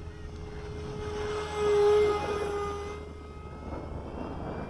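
Electric ducted fan of a 70 mm EDF model Alpha Jet on a 4-cell battery, whining as the jet makes a pass. It swells to its loudest about two seconds in, then fades as the plane moves away.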